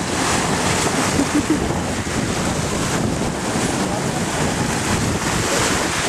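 Sea waves washing and wind buffeting the microphone, a steady rushing noise.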